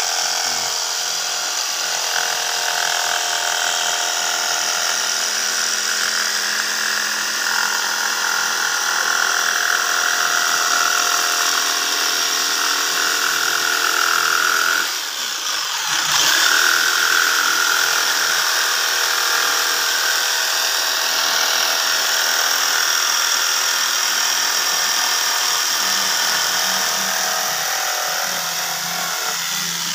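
Corded electric jigsaw running steadily as its blade saws through a sheet of plywood, a constant motor whine with the blade's rapid stroking. The sound dips briefly about halfway through, then picks up again.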